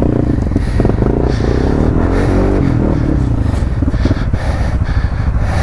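ATV engine running, revved once so its pitch rises and falls about two to three seconds in.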